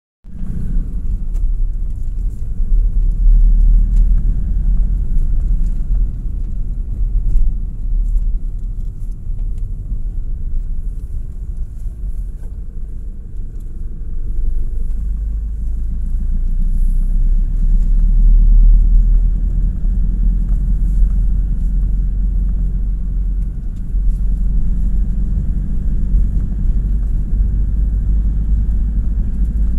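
Steady low rumble of a vehicle driving along a concrete road, engine and tyre noise heard from inside the vehicle.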